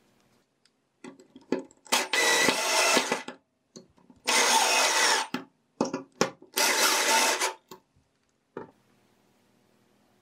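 Power drill driving three screws into wood boards, three runs of about a second each, with short knocks of handling between them.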